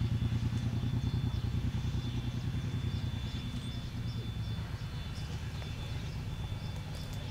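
Ab-class Pacific steam locomotive Ab608 working along, its exhaust beats coming in a rapid, even stream over a low rumble that slowly fades.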